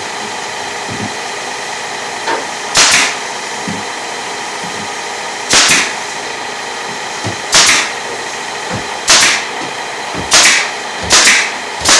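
A staple gun firing seven sharp shots into drywall to tack a panel in place, each with a brief hiss. The shots come irregularly, closer together near the end, over a steady hum.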